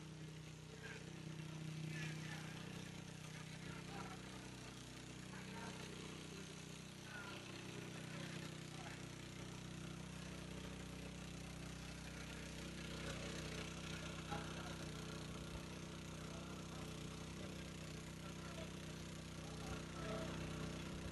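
Small engine running steadily at a constant speed, a faint low hum, with faint distant voices now and then.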